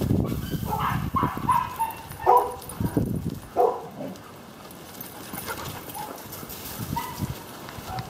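Dogs barking in short, high yips during play: a quick run of barks about a second in, more around two to four seconds, and a couple near the end. A low rumble sits under the first half.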